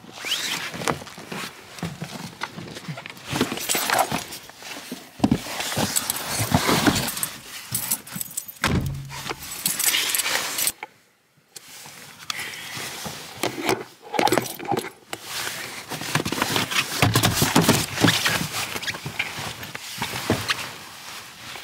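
Rustling, bumping and clinking as a person climbs and shuffles into a car's trunk while holding a phone, with handling noise on the microphone and a few low thumps against the trunk. The sound cuts out briefly near the middle.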